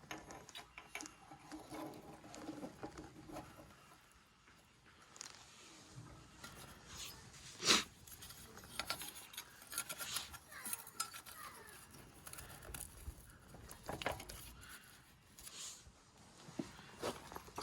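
Irregular light metallic clinks and taps of small engine parts and tools being handled while a piston is fitted into a small single-cylinder engine, with one sharper clink about eight seconds in.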